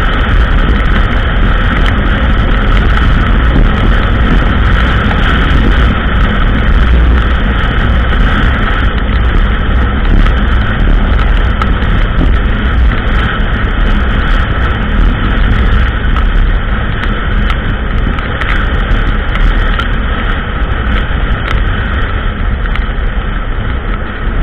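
ATV engine running steadily while riding along a trail, with a constant low rumble and frequent small clicks and knocks from the ride.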